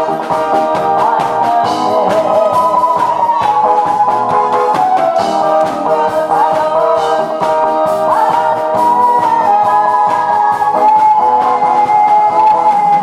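A woman singing into a microphone over an amplified backing track with guitar and a steady beat. She holds a long note in the last few seconds.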